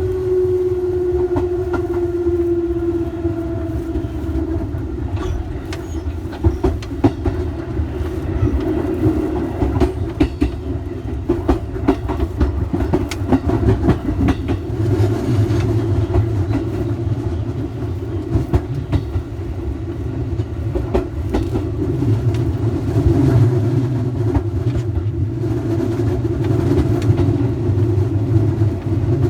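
Electric commuter train running, with a motor tone gliding down in pitch over the first few seconds, then steady running noise with repeated clicks of wheels over rail joints.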